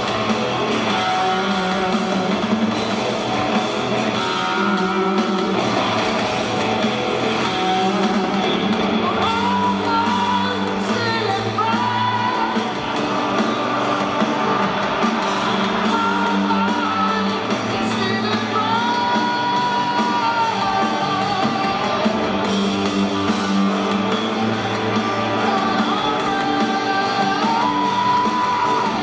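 Live rock band playing with guitars, a male lead singer holding long sung notes over them. Several of the notes rise into their pitch, are held, and then fall away.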